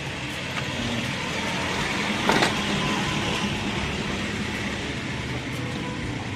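A passing motor vehicle: a steady rushing noise that swells to a peak about two and a half seconds in, then fades.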